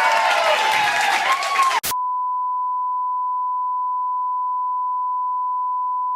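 A loud, noisy, distorted burst with wavering voice-like pitches for the first couple of seconds. It cuts to a single steady, high beep tone, like a censor bleep or test tone, held unchanged for the rest of the time.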